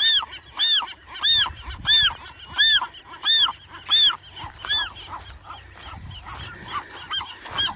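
A western gull calls loudly over and over, a rising-and-falling squawk about one and a half times a second, with fainter gulls joining near the end. These are the calls of gulls squawking at an intruder close to their chicks.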